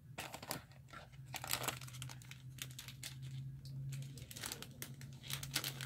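Large paper photo prints being handled and shuffled: irregular rustling and crinkling with a few sharper crackles. A steady low hum runs underneath.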